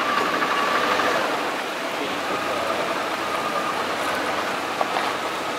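Toyota Land Cruiser 80 Series engine running at low speed as the truck creeps over rocks, with a couple of short knocks near the end.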